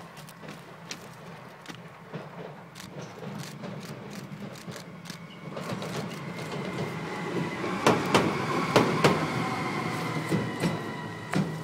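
Siemens Vectron class 192 electric locomotive approaching and passing close, growing steadily louder. From about halfway a steady high whine joins in, and near the loudest point there is a run of sharp clacks of its wheels over rail joints and points.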